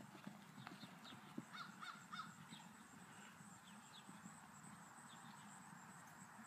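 Faint hoofbeats of a ridden horse trotting on grass. About one and a half seconds in, a bird calls three times in quick succession.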